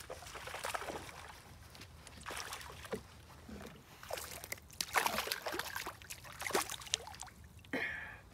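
A small hooked bass splashing and thrashing at the water's surface as it is reeled in, in a string of irregular splashes and sloshes, then lifted out dripping.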